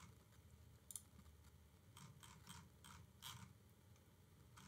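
Near silence: room tone with a few faint, short clicks of a computer mouse, one about a second in and a quick run of them between two and three and a half seconds in.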